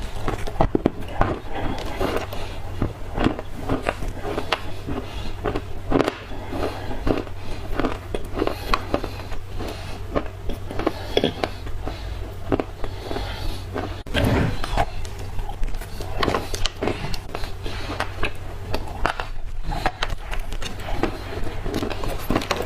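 Black clay being bitten and chewed close to the microphone: a long run of irregular crisp crunches, over a steady low hum.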